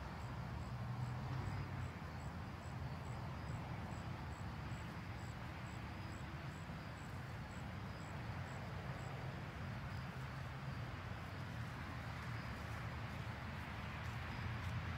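Outdoor background noise: a steady low rumble, with a faint high chirp repeating about twice a second for the first nine seconds.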